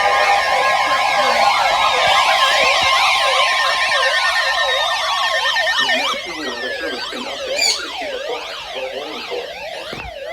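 Electronic siren-style alert tones: several overlapping warbling tones with a few slowly falling tones over them. They are loud at first and drop somewhat about six seconds in.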